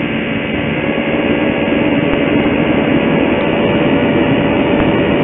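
Camera drone in flight: its motors and propellers making a steady whine over a constant rushing noise, heard close up through the drone's own onboard camera.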